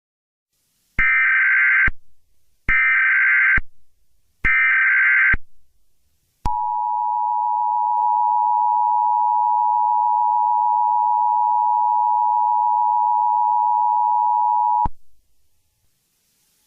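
Emergency Alert System tones. First come three short bursts of buzzing data tones (the SAME header), each lasting about a second. Then the two-tone attention signal sounds as a steady beep for about eight seconds before it cuts off.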